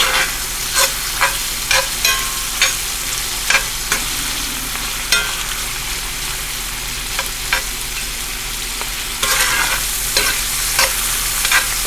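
Chicken hearts sizzling in butter in a hot cast-iron pan, a steady hiss, with irregular clicks and scrapes as the hearts are stirred and moved around the pan. The stirring eases off in the middle and picks up again for the last few seconds.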